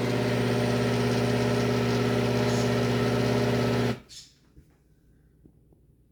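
Breville Bluicer blender motor running with a steady low hum, labouring on thick peanut butter, then cutting off abruptly about four seconds in; only a few faint clicks follow. The motor is being run again soon after its overheat protection tripped.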